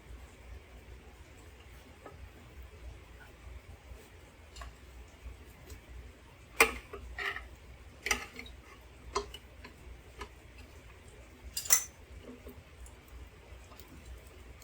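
A handful of sharp clicks and light clinks from tools and small parts being handled. The loudest come about seven seconds in and again near twelve seconds, over a faint steady background hiss.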